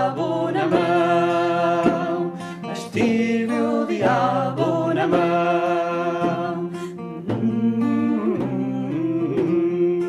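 Music: a song with acoustic guitar and a voice singing long, wavering notes without distinct words.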